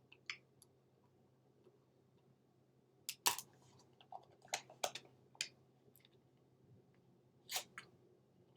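Faint, scattered short clicks and crackles of someone eating and handling food and its packaging close to the microphone, in small clusters about three seconds in, around four to five seconds, and near the end.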